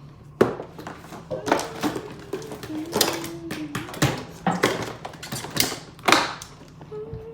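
Plastic toys and packaging being handled: a run of sharp clicks and rustles at irregular intervals, with a faint thin wavering tune under them.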